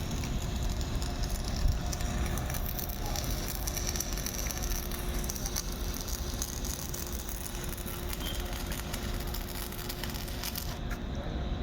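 Electric arc welding crackling steadily over a low hum, the high crackle cutting off near the end as the arc stops.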